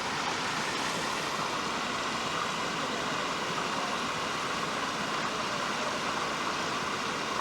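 Creek water spilling over a low-water bridge in small falls: a steady, even rush of water.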